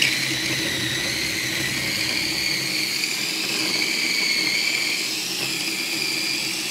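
Electric mini chopper motor running steadily with a high whine, blending a dense burger mix of tempeh and roasted vegetables that is a heavy load for so small a chopper.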